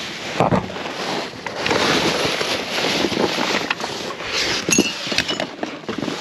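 Plastic bags and cardboard boxes rustling, crinkling and scraping as they are rummaged by hand in a dumpster, with scattered knocks and a brief squeak late on.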